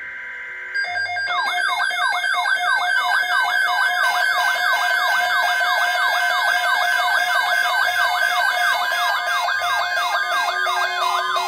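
Electronic siren-style alert tone played over an FM radio broadcast: a rapid falling wail repeating about three times a second over steady high tones. It starts about a second in and cuts off suddenly near the end.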